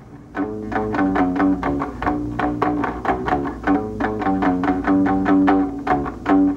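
Ukulele playing a quick, picked melody of short plucked notes and chords, cut off abruptly near the end.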